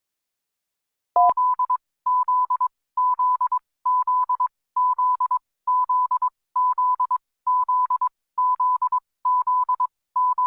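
Emergency alert tone: a single-pitched beep chopped into quick stuttering pulses, sounding in groups that repeat a little faster than once a second. It begins with a click about a second in.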